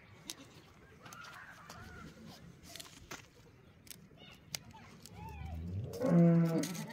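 Goat pen: a few faint short high calls, then about six seconds in a goat bleats once, loud and steady, for under a second.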